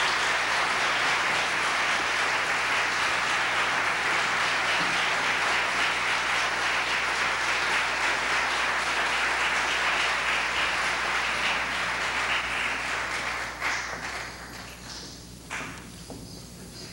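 Concert audience applauding steadily, the applause dying away near the end. A couple of short knocks sound as it fades.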